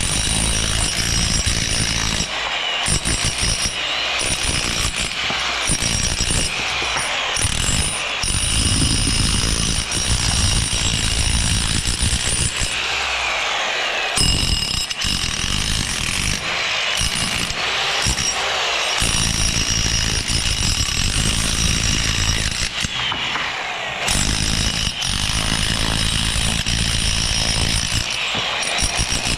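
Loud, continuous construction-site power-tool and machinery noise, broken by a few sudden short drops.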